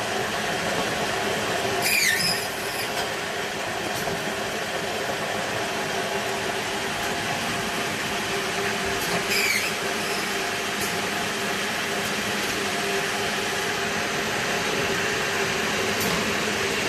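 Automatic egg roll baking machine running with a steady hum and whir, with two short high squeaks about two seconds in and again near nine seconds.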